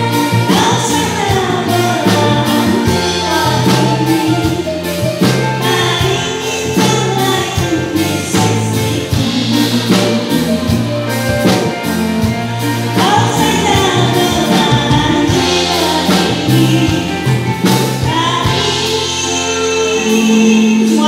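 A woman singing an Indonesian pop song into a microphone, backed by a live band with keyboard and drums.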